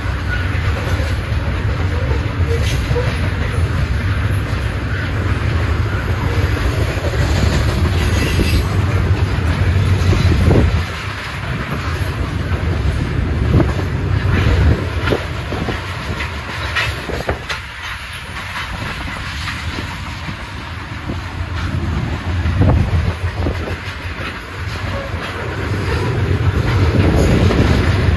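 Loaded Norfolk Southern coal hopper cars rolling past: a steady rumble of steel wheels on rail with clickety-clack over the rail joints. It is louder for the first ten seconds, quieter through the middle, and swells again near the end.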